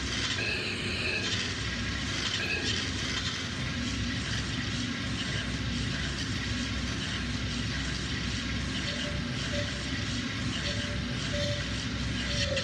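Live sampler performance: a dense, steady wash of noise with a low, constant undertone, and short stretches of a held mid-pitched tone coming in over the last few seconds.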